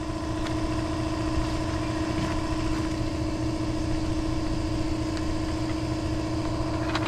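An engine idling steadily, with an even low rumble and a constant hum, and a few light clicks near the end.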